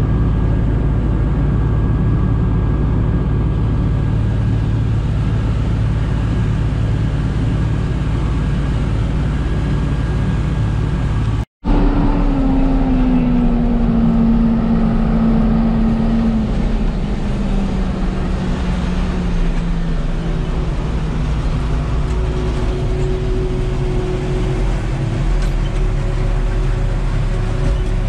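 Engines of a Claas 820 forage harvester and its wagon tractor running steadily while chopping corn silage. After a break about 11 s in, a droning tone slowly falls in pitch.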